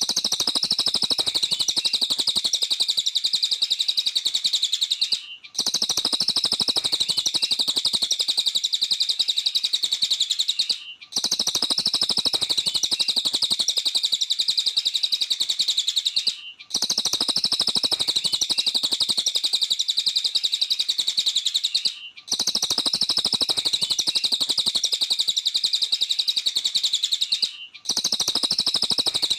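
A cililin songbird singing fast and continuously: a dense run of high chirps in stretches of about five and a half seconds, each broken off by a brief gap, repeating evenly like a looped recording.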